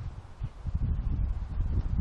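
Wind buffeting the microphone, an irregular low rumble that rises and falls in gusts.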